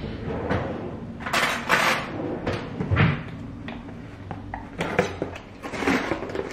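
A knife slitting the packing tape on a cardboard shipping box: a series of short scraping rasps, with a few knocks as the box is handled.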